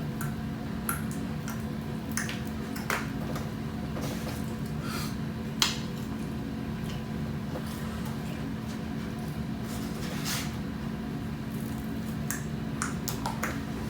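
Close-up eating sounds: chewing and mouth noises over shrimp and chicken, with scattered short clicks and smacks, the sharpest about five and a half seconds in, over a steady low hum.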